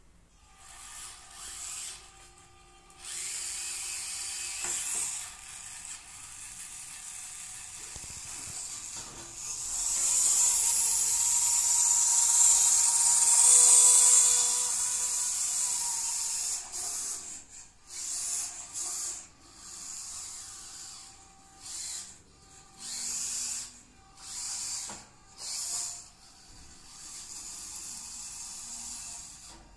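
Micro-scale RC crawler truck's small electric motor and gearbox whining as it drives, loudest when the truck passes close by. In the second half the whine comes in short stop-start bursts as the throttle is blipped.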